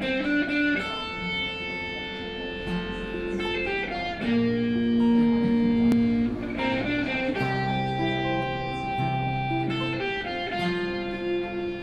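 Guitar playing a slow melody of long held notes over changing chords.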